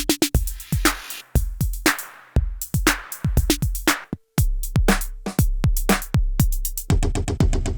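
IK Multimedia UNO Drum, an analog/PCM hybrid drum machine, playing a sequenced pattern: deep analog kicks that drop in pitch, snare and clap hits, and quick hi-hat ticks. About four seconds in it stops briefly, then a new pattern starts with a held pitched tone under the kicks and hats.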